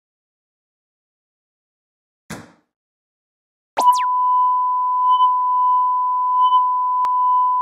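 Silence broken by a short burst of noise about two seconds in, then, about halfway through, a steady pure beep of a broadcast test-card tone that holds on unchanged, with one small click near the end.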